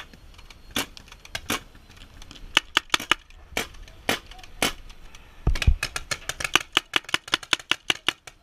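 Paintball marker firing: scattered single shots at first, then rapid strings of about eight shots a second from about five and a half seconds in, with a dull knock at the start of the fast strings.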